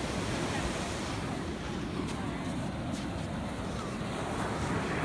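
Ocean surf washing onto a sandy beach in a steady rush, with wind buffeting the microphone.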